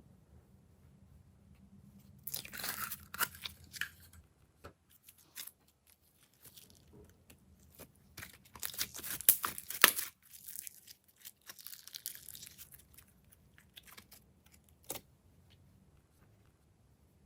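Slime being mixed by hand, crackling and crunching in irregular bursts, loudest around the middle.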